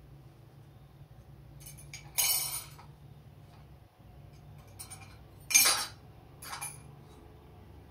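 A spoon clinking and rattling in a mug of bangles in a few short bursts, the loudest about two seconds in and again about five and a half seconds in.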